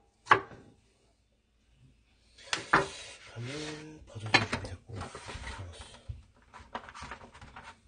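Kitchen prep handling noises: a few knocks of a kitchen knife and hands on a wooden cutting board, then rustling and clicking as vegetables are handled beside a plastic container.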